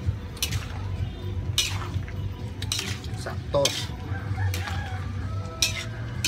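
Metal ladle clinking against a large aluminium wok several times while stirring pork simmering in broth.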